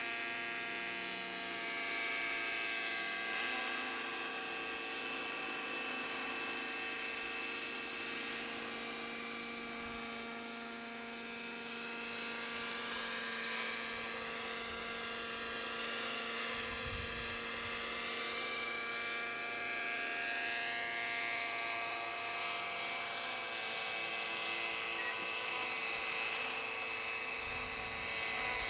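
Knight 50 3D radio-controlled model helicopter in flight: its engine and rotors give a steady whine whose pitch drifts slightly up and down as it manoeuvres.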